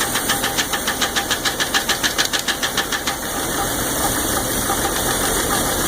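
Jeep 4.0 inline-six engine idling with a rapid, even valvetrain tick that stops about three seconds in, leaving the engine running smoothly. The tick goes quiet when pressure is put on the #5 exhaust valve, which points to that valve's lifter; the owner asks whether the lifter is collapsed or stuck, or whether it is piston slap.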